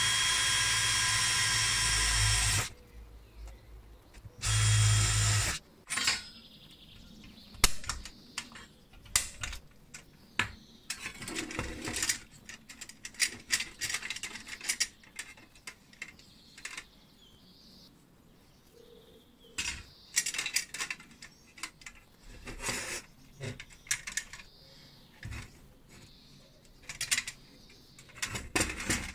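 DeWalt cordless drill running steadily for about two and a half seconds, stopping, then running again briefly about a second later. After that come scattered sharp metallic clicks and rattles as the sheet-metal parts of a tin toy cash register are handled and pulled apart.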